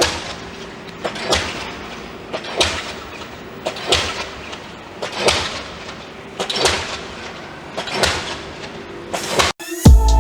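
Heavy impacts repeating at a steady pace, about one every 1.3 seconds, each ringing out briefly over a faint steady hum. The sound cuts out near the end and music with a beat begins.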